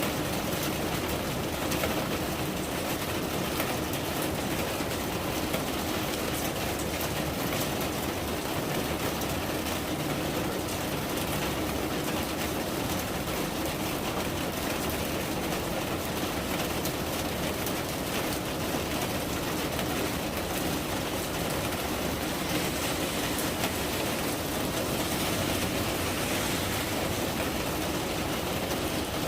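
Steady rain falling: an even, continuous hiss.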